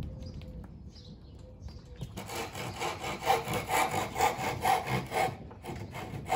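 Hand saw cutting through the ends of softwood featherboard roof boards, guided along a fixed bar to trim them flush. The sawing starts about two seconds in with even strokes about two a second, pauses briefly near the end, then carries on.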